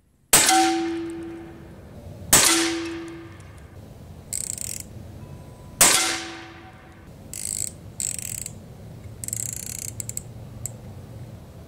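Three shots from a Steyr LG110 PCP air rifle, each a sharp crack that dies away over about a second, the first two with a short ringing tone. The second shot comes about two seconds after the first, and the third about three and a half seconds after that. Between and after the shots, the action is cocked and reloaded with short metallic clicks and slides.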